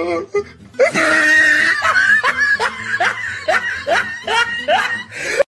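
A person laughing hard, in a run of short bursts about three a second, cut off suddenly near the end.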